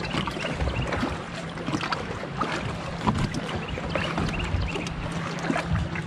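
Bass boat on the water with a steady low electric hum, and scattered light clicks and knocks of gear being handled on the deck.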